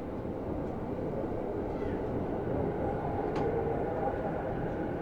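Electric commuter train noise heard from on board: a steady rumble with faint whining tones and a couple of short clicks.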